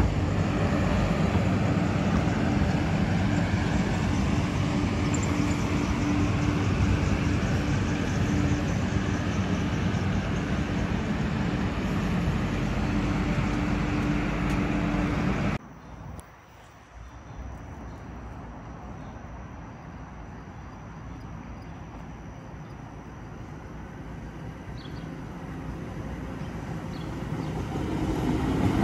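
MBTA Green Line light-rail train running, a loud steady rumble with a low hum. It cuts off suddenly a little past halfway to a much quieter background, and another Green Line train's rumble builds near the end as it approaches.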